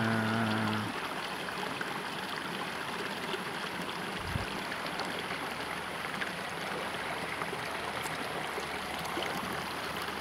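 Steady rush of a fast-flowing river. A person hums a tune that ends about a second in, and there is a brief low thump about four seconds in.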